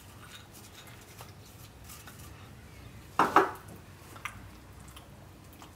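Light taps and clinks of soap-making utensils and containers against a mixing bowl as melt-and-pour soap embed pieces are added to thick soap batter, with one louder clatter a little after three seconds in.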